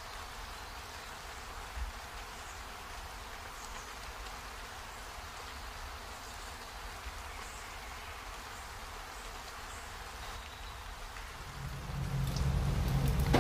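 A thin stream of coconut milk pouring into a pot of coconut milk, a steady, even trickling splash. Near the end a louder low hum joins in and the sound grows louder.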